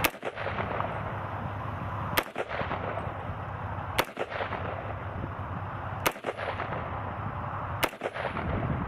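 Five single shots from a Bear Creek Arsenal 300 Blackout AR pistol firing supersonic 150-grain full metal jacket rounds, about two seconds apart. Each round fires and cycles with no malfunction.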